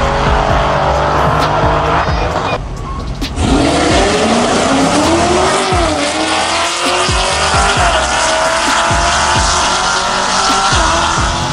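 Cars racing down a drag strip at full throttle, loud engine noise throughout. After a short dip about three seconds in, one engine's note climbs steadily and drops back at each upshift, about six and eight seconds in.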